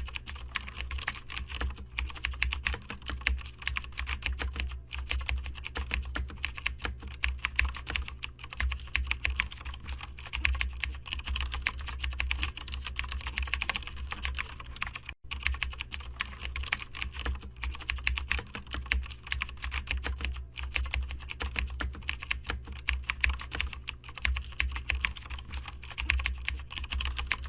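Rapid, continuous computer-keyboard typing, a dense patter of key clicks with one brief break about halfway, over a low steady hum.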